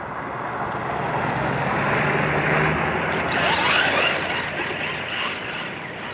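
A full-size pickup truck drives past on a snowy road, its engine and tyre noise building and then fading. About three and a half seconds in, the 1/10-scale RC Ford F-150 Raptor's brushless VXL motor whines up in pitch as the RC truck speeds close past.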